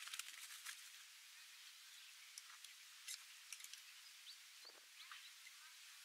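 Faint clicks, ticks and rustles of hands setting a wire-noose sling bird trap among leaves and twigs, over a steady faint outdoor hiss.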